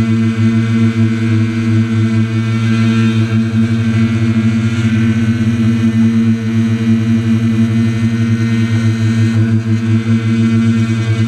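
Quadcopter's electric motors and propellers hovering: a loud, steady buzzing hum whose pitch barely changes.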